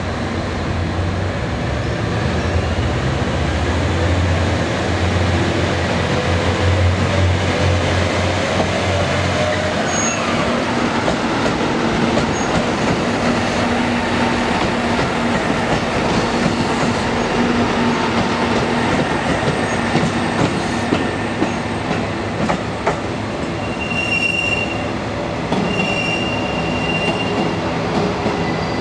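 KiHa E130-500 diesel railcar running through the station: a low diesel engine drone with a tone that rises in pitch, then a steady lower tone and wheels on the rails. Brief high wheel squeals come near the end.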